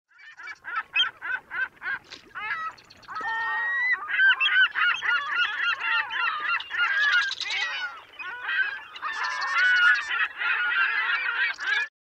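Birds calling, many overlapping calls with bending pitch, opening with a quick run of short repeated notes; the calling stops abruptly near the end.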